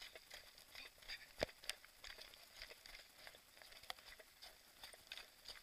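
Faint footsteps on loose scree: small stones clicking and clattering underfoot in an irregular patter, with one sharper knock about a second and a half in.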